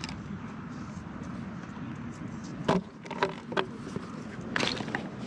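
Sharp clicks and clacks of a skateboard truck being unclipped and pulled off a Qwik Trucks quick-release baseplate: a few single clicks about three seconds in, then a short rattle of them near the end, over a steady background hiss.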